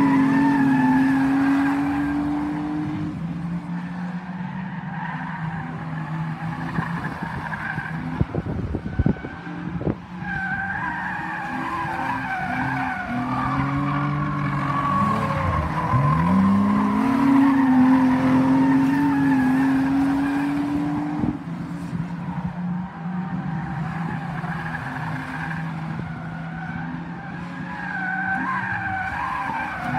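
Stock car engines racing round an oval track, their pitch falling and rising as the cars ease off and accelerate, with one engine climbing steeply in pitch about halfway through. A few sharp knocks come about a third of the way in.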